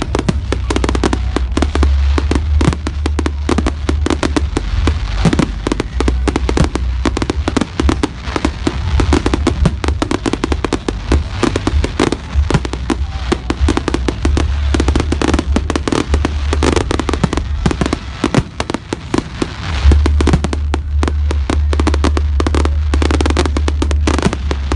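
Fireworks display going off continuously: a dense run of rapid bangs and crackles, loud, over a steady low rumble.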